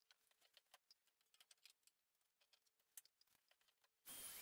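Faint handling clicks, then about four seconds in a cordless drill starts driving a screw into the pine frame, its motor running with a high whine that rises slightly in pitch.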